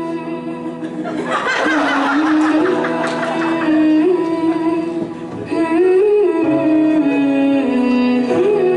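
Music: a slow melody moving over held notes, with a busier, warbling passage about one and a half seconds in.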